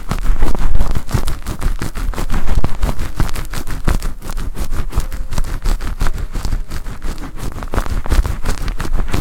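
Close-up ASMR scratching and rubbing of a fluffy white material against the microphone, a dense run of crackly strokes that imitates a hair wash.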